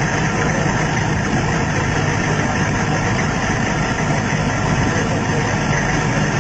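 Steady low hum of an idling engine, even in level throughout, with a dense hiss over it.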